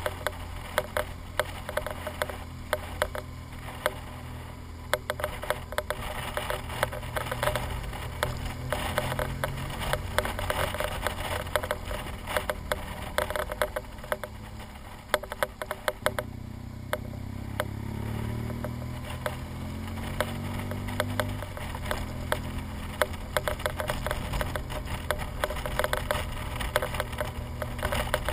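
BMW R1200GS boxer-twin engine running under way. About two-thirds through, its pitch climbs for a few seconds as the bike accelerates, then drops back. Throughout there is dense, irregular clicking and rattling from the camera and its mount.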